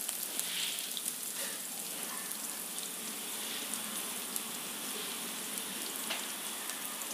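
Coconut oil sizzling in a steel pot with curry leaves, dried red chillies, ginger and green chillies frying in it: a steady hiss with many small crackling pops.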